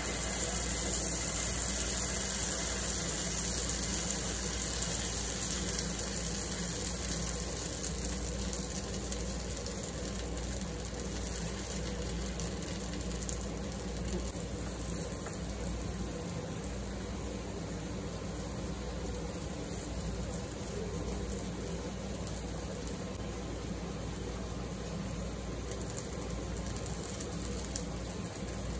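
Corn cachapa batter sizzling in hot oil in a nonstick frying pan: a steady sizzling hiss that starts as the batter is poured in and is a little louder in the first couple of seconds.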